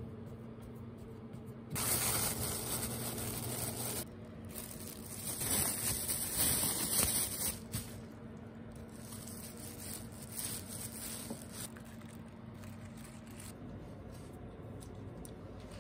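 Thin plastic bag crinkling and rustling as cookie dough is pressed flat inside it: two louder spells of a few seconds in the first half, then softer rustles that stop about three quarters of the way through.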